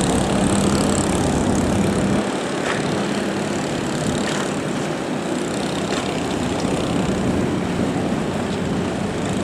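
Small gasoline engines of vỏ lãi long-tail racing boats running with a steady drone. The deepest part of the rumble drops away about two seconds in.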